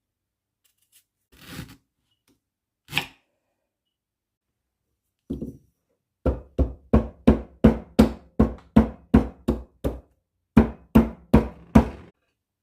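Knife chopping on a cutting board: a steady run of firm chops, just under three a second, with a short pause about ten seconds in. A soft rustle and a single knock come before it.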